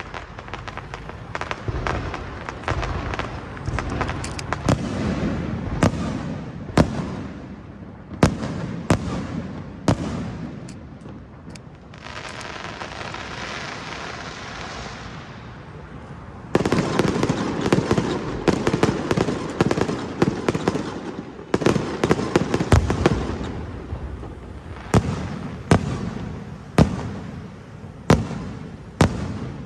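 Firecrackers and fireworks going off in a dense rapid crackle, with sharper louder bangs standing out. For a few seconds near the middle it gives way to a steadier hiss. It then comes back suddenly as loud dense crackling, and near the end turns to single loud bangs about a second apart.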